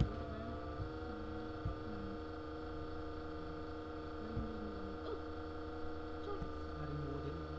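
Steady electrical mains hum with several overtones, with a few brief soft knocks scattered through it.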